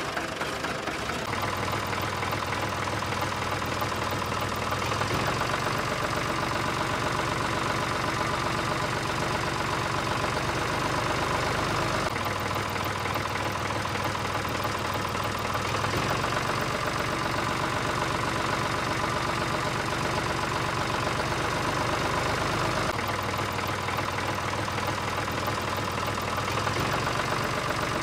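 Tractor engine idling steadily with an even chugging pulse, shifting slightly a few times where the sound is cut.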